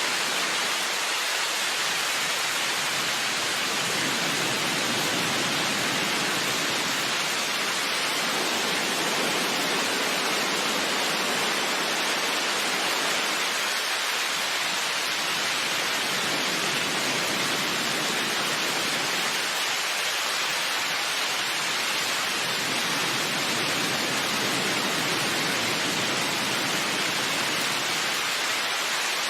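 Heavy rain falling as a steady, even hiss, with no separate drops or rumbles standing out.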